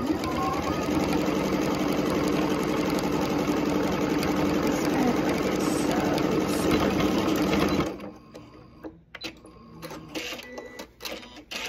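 Computerized electric sewing machine stitching steadily through a layered terry towel and cotton fabric, then stopping about eight seconds in. A few light clicks follow.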